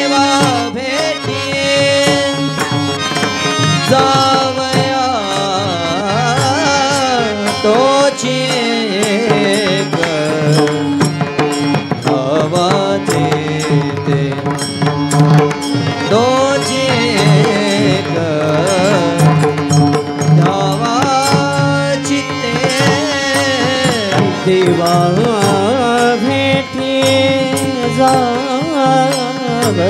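Varkari kirtan music: a pakhawaj barrel drum and small brass tal cymbals keep the rhythm while a voice sings a slow tune with sliding ornaments, over a steady low drone.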